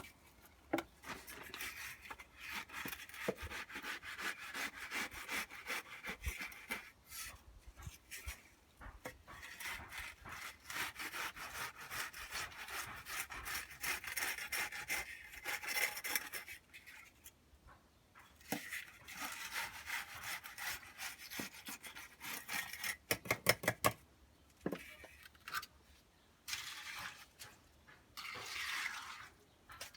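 Repeated rough scraping of a hand tool working wet concrete mix, in long runs of quick strokes with short pauses, and a fast run of sharp taps about three-quarters of the way through.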